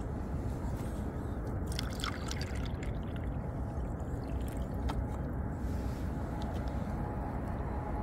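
Water poured from a plastic drink bottle into a small plastic bowl, trickling, over a steady low rumble with a few faint clicks of handling.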